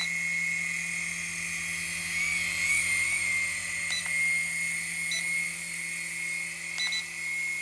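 Small coaxial RC helicopter flying, its electric rotor motors giving a steady high whine that wavers a little in pitch two to three seconds in. A few short high beeps sound over it.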